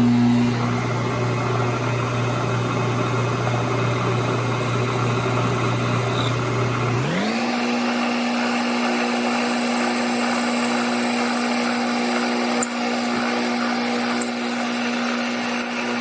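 Milling machine spindle running with a 3/16-inch drill bit, drilling a hole through 1/2-inch scrap metal plate. About seven seconds in, the motor's pitch rises as the spindle speeds up, then holds steady.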